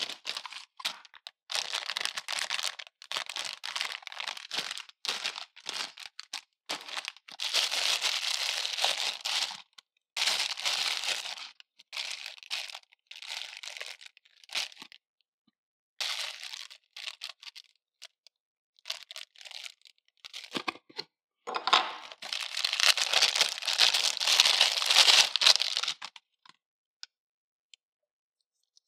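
Plastic packaging bags crinkling and rustling in bursts, with small clicks and knocks of hard plastic accessory parts being handled. The longest, loudest stretch of crinkling comes about three quarters of the way in, followed by only a few faint clicks.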